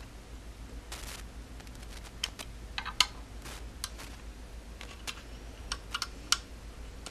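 Small metal hex key turning screws snug into a plastic 3D-printed cover on the back of a 3D printer's display board: scattered light clicks and ticks, a few at a time.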